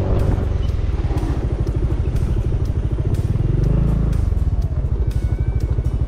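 Honda Forza 350 scooter's single-cylinder engine running at low speed, with a short rise in revs about four seconds in. It then settles into an even, pulsing idle.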